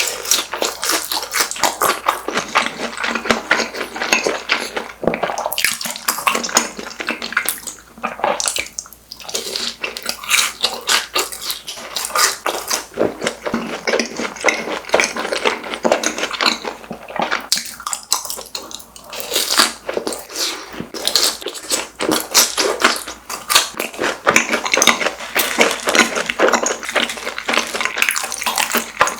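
Close-miked eating of crispy fried snacks: a dense, continuous run of crunching bites and chewing.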